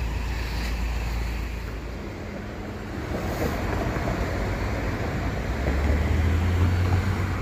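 Street traffic at an intersection, cars passing, with wind rumbling on the microphone. It grows loudest about six seconds in as a vehicle goes by.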